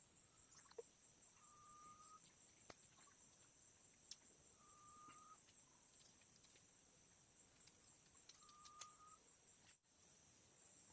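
Tropical forest ambience: a steady high-pitched drone of insects, with a bird whistling a single flat note three times, about every three and a half seconds. A few faint clicks are also heard.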